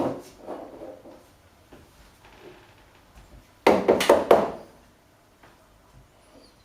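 Knocks and thunks of hard objects set down or tapped on a counter: one at the start, then a louder cluster of several knocks about four seconds in.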